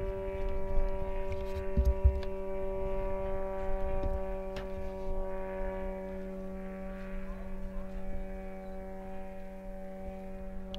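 Engine of a radio-controlled tug plane towing a sailplane overhead, a steady distant drone that holds one pitch throughout. Wind rumbles on the microphone, with a gust about two seconds in.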